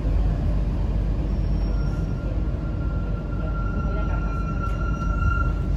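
Alstom NS-16 rubber-tyred metro train heard from inside the car, running with a steady low rumble as it comes into a station. A thin whine comes in about two seconds in and grows louder toward the end.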